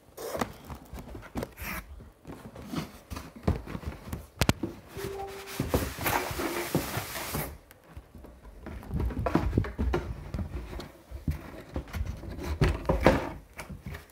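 Packaging being handled during an unboxing: cardboard and foam rustling, with scattered knocks and clicks and a longer hissing scrape or tear about six seconds in.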